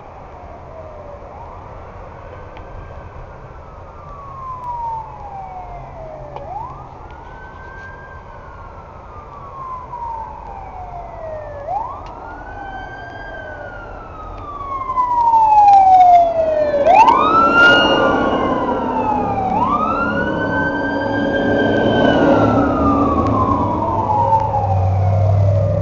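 Fire engine siren wailing: each cycle rises quickly in pitch and falls away slowly, about every five seconds at first. It gets much louder about two-thirds of the way through, as a second, higher siren joins in and the two wails overlap, with a heavy engine under them near the end.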